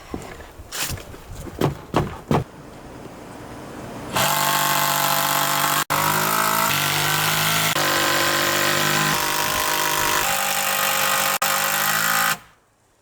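A few sharp knocks, then a cordless power drill/driver runs loudly in several short bursts, its motor pitch stepping to a new level with each burst, driving screws to fasten a new deck board.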